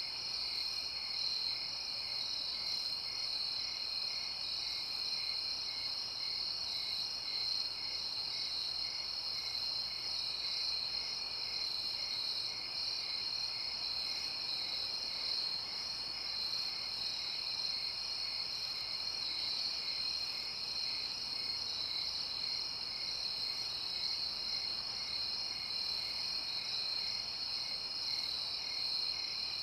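Nighttime chorus of crickets and other insects trilling steadily, with a lower chirp repeating about twice a second.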